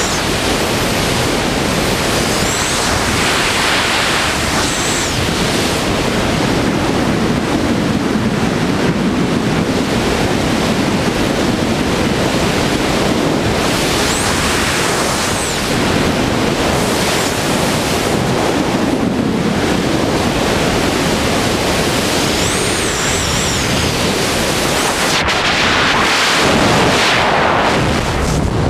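Freefall wind rushing over a skydiver's helmet camera: loud, steady wind noise throughout. Near the end the sound shifts as the parachute deploys.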